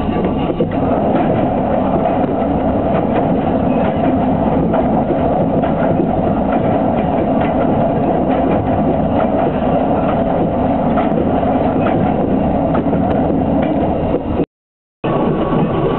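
Diesel train running along the track with a steady rumble and faint wheel clicks, as it crosses a steel truss bridge. The sound drops out abruptly for about half a second near the end.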